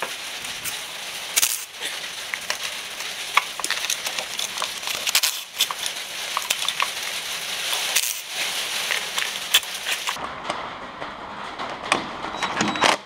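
Cordless impact tool hammering on an exhaust manifold nut of an Audi 5.2 V10 through a long extension, a dense rattling and crackling that stops briefly about five and eight seconds in.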